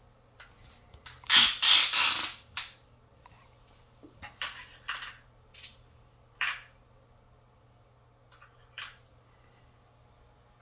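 Hard plastic toys being handled: a brief burst of clattering and rattling about a second and a half in, then scattered single clicks and knocks.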